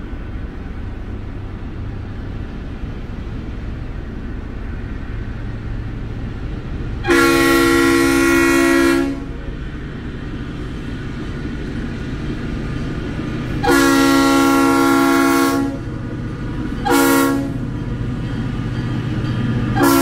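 Diesel freight locomotive's air horn sounding the grade-crossing signal: long, long, short, long, a chord of several tones. A steady low rumble lies beneath.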